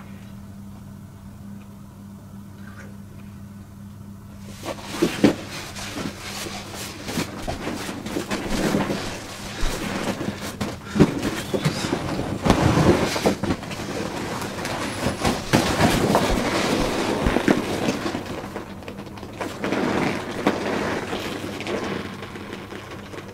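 Deflated PVC inflatable being handled, folded and pressed down by hand: crinkling, rustling vinyl with many small crackles, starting about four and a half seconds in and going on in irregular clusters, over a steady low hum.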